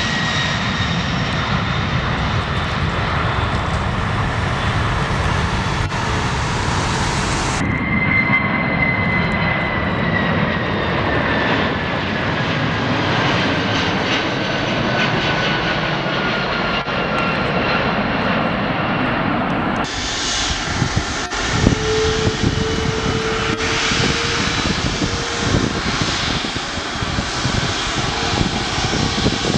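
Jet airliner engines in three edited clips. First an Airbus A310 freighter on its takeoff roll with the engines at high power. Then a three-engine MD-11 on final approach, a high whine falling slowly, and from about twenty seconds in a twin-engine widebody Airbus on the runway, a steady engine whine over low rumble and crackle.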